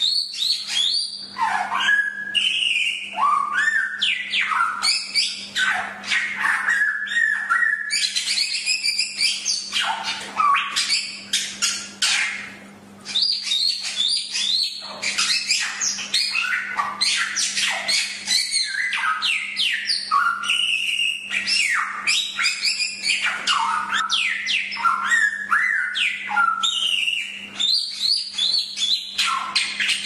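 Samyong (golden whistler) singing continuously: a rapid, varied run of whistled notes, pitch glides and chattering phrases, with a short pause about twelve seconds in.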